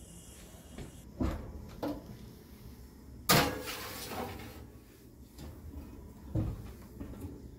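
Metal baking tray knocking and sliding onto an oven's wire rack, with the loudest clatter about three seconds in, then a thump near the end as the oven door shuts.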